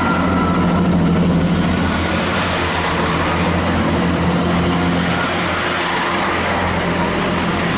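Diesel train running under power: a steady low engine drone under a wide rushing noise.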